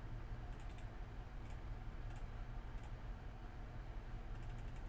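Faint clicks of a computer mouse and keyboard. There is a quick group of three a little after the start, then single clicks about every 0.7 s, then a rapid run of about five near the end, over a steady low hum.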